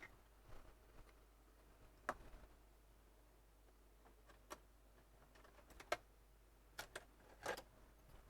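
Near silence broken by a handful of short, light clicks and taps, spaced irregularly a second or so apart.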